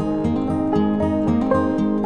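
Background music: a gentle tune on plucked strings, with notes struck at a steady pace.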